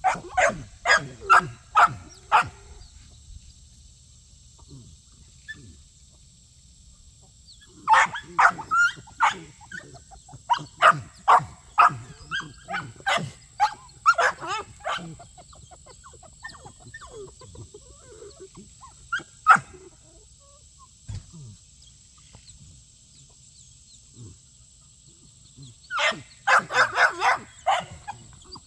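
Dogs barking in rapid volleys with pauses between: a flurry at the start, a long run in the middle, one lone bark later, and another fast flurry near the end.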